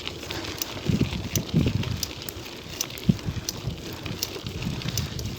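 Bicycle climbing a forest track, with wind rumbling on the microphone and light, fairly regular ticks from the bike.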